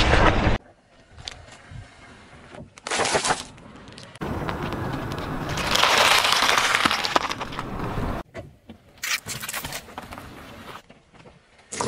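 A car tyre crushing objects on asphalt in a run of short clips. An orange bursts under the wheel and cuts off about half a second in. Later a head of romaine lettuce crunches and splits under the tread for about four seconds, with quieter stretches and short crackles between.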